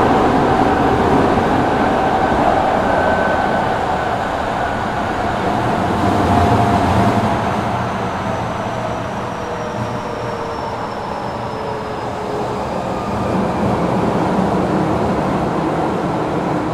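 Kobe Municipal Subway 1000 series train with Hitachi GTO-VVVF traction, running through the tunnel, heard from inside the car: a steady rumble of wheels and car body, with faint motor and inverter whines that slowly fall in pitch as the train slows.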